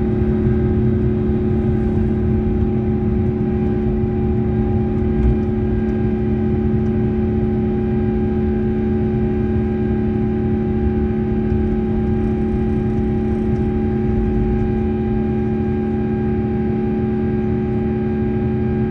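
Airbus A350's Rolls-Royce Trent XWB turbofan at takeoff thrust during the initial climb, heard from inside the cabin over the wing: a steady roar with a deep rumble and several held humming fan tones.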